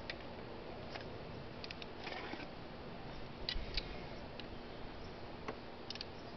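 Light, scattered clicks of a socket wrench's ratchet on the GY6 scooter's crankcase cover bolts, a few at a time with pauses between, over a faint steady hum.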